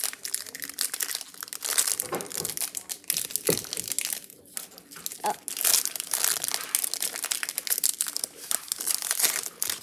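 Foil Pokémon booster pack wrapper crinkling and tearing as it is opened by hand, a steady dense crackle of sharp crinkles.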